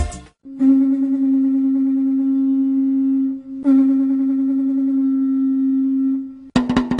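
Two long, steady blasts on a conch shell trumpet, each about three seconds, with a short break between them. Just before the end, a drum ensemble starts up with rapid strokes.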